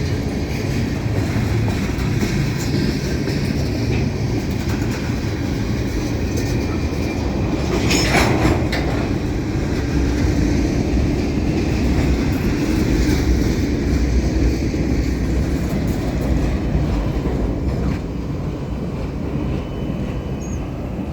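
Union Pacific manifest freight cars rolling past on steel wheels, with a steady rumble and clickety-clack over the rail joints. A brief sharp clank or squeal comes about eight seconds in.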